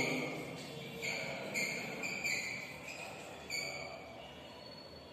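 Chalk writing on a blackboard: several short scratchy strokes over the first few seconds, then quieter.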